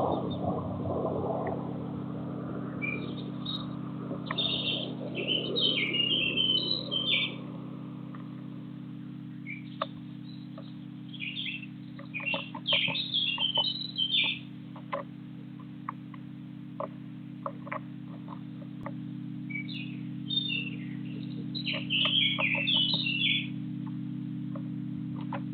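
Small garden birds chirping in three bouts of quick high notes, with scattered short clicks between the second and third bouts and a steady low hum underneath.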